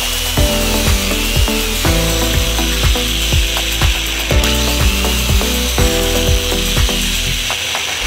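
Electric drill boring small holes into an MDF board, under background music with a steady beat of about two clicks a second.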